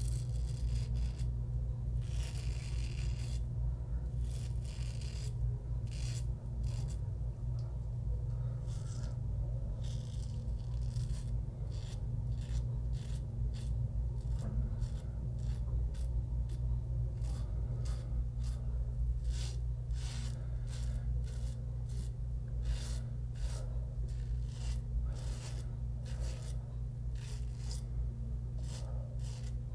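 Merkur 34G double-edge safety razor with a Wilkinson Sword blade scraping through lathered stubble on the jaw in many short, quick strokes, a cross-grain pass. A steady low hum runs underneath.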